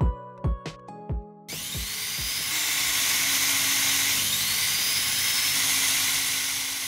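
Music with a beat for about the first second and a half, then a small handheld rotary tool starts and runs steadily with a high whine, drilling a small hole into the edge of a wooden panel with a fine bit.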